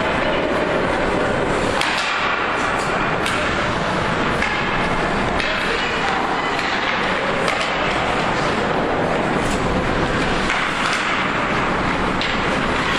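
Ice hockey rink ambience during play: a steady hubbub of indistinct spectator voices with scattered sharp clacks of sticks and puck on the ice, echoing in the arena.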